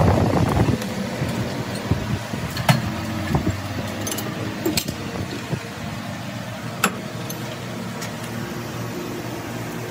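Steady workshop machine hum, with a few sharp metallic clinks about three, four and seven seconds in.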